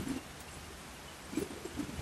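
A pigeon cooing in short, low, broken phrases, once at the start and again about a second and a half in.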